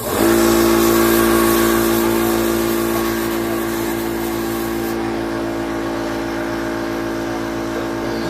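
Yong Heng-type high-pressure PCP air compressor starting abruptly and running with a loud steady hum and hiss. The high hiss drops away about five seconds in while the hum carries on.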